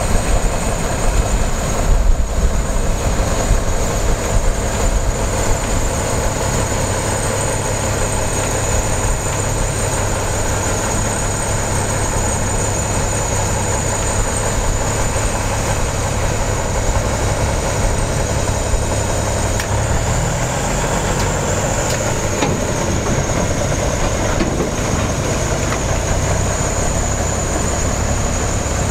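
Diesel work locomotive's engine running steadily as it moves slowly along the track coupled to a set of new R211 subway cars, with a low rumble from the engine and rolling stock and a thin steady high whine over it.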